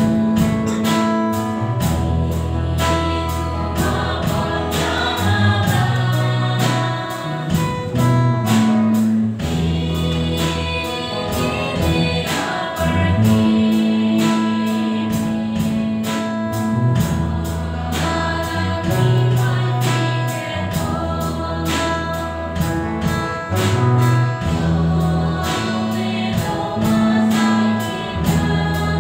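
A church choir singing a gospel song with a live band: guitar, sustained low bass notes and a drum kit keeping a steady beat.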